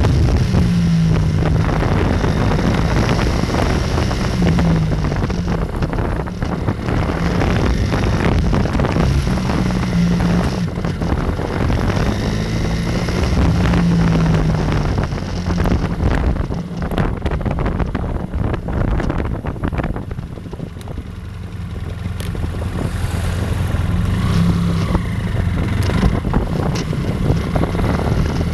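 BMW F800R's parallel-twin engine running under way as the motorcycle is ridden, with wind buffeting the microphone; the engine eases off about twenty seconds in and then picks up again.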